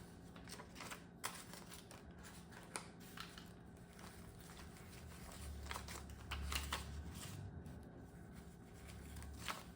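Paper banknotes being handled and swapped in a cash envelope binder: soft rustling and crinkling of bills and envelopes, with scattered small clicks and taps.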